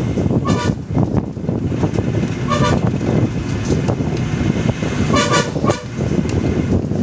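Steady engine and road rumble of a moving vehicle, with a horn honked three times: just after the start, about two and a half seconds in, and a slightly longer blast a little past five seconds.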